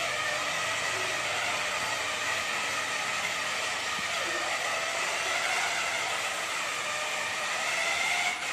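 Small electric motor and plastic gears of a motorised toy car, whining steadily as it drives.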